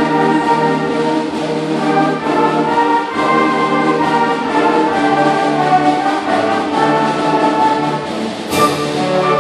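Middle school concert band playing, brass prominent, holding sustained chords that change every second or so, with a sudden crash near the end.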